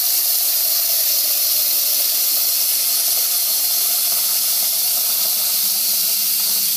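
Kitchen faucet running a strong stream into a metal pot in a sink, filling it with water; a steady, even hiss.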